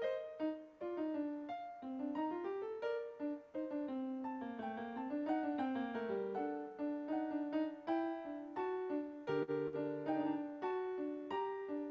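Piano music: a steady stream of struck notes in a flowing melody, with lower bass notes coming in about nine seconds in.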